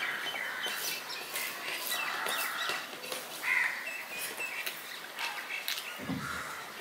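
Close-up eating sounds: fingers mixing rice and fish curry on a steel plate and a mouthful being chewed, with wet clicks and smacks. Short high chirps sound in the background now and then.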